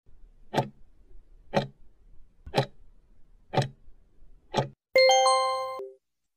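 Countdown timer sound effect ticking five times, once a second, ending in a ringing tone about a second long that marks time up.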